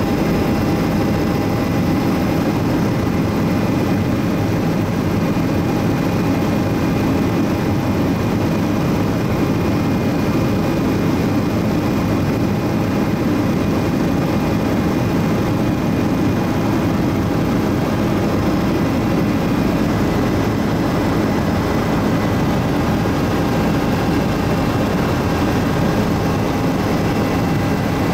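Bell 407 helicopter in steady cruise flight, heard from inside the cabin: a dense, deep rotor and airframe rumble with a constant whine of several high tones from its single Rolls-Royce 250 turboshaft engine, unchanging throughout.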